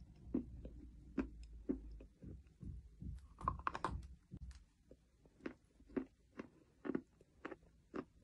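Edible chalk being chewed with crisp, dry crunches. About three and a half seconds in, a quick burst of snapping crunches comes as a fresh piece is bitten off, then steady chewing crunches follow about twice a second.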